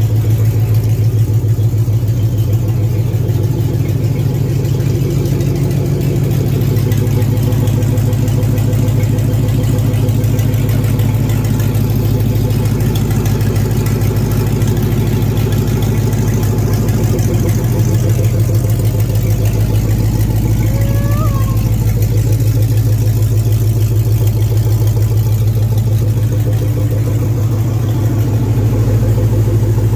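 GMC pickup's 4.8-litre V8 idling steadily. A brief high chirp comes about two-thirds of the way in.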